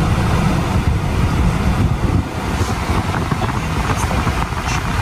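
Car running, with a low, uneven rumble.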